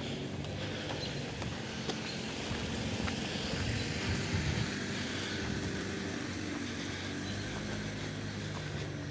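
A car driving past, its engine hum and tyre noise swelling to their loudest about four seconds in and then running on steadily.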